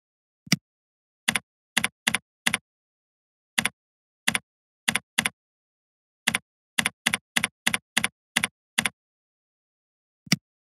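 Computer keyboard keystrokes as a short line of text is typed, about sixteen separate key clicks in an uneven run, with a single mouse click just before the typing and another near the end.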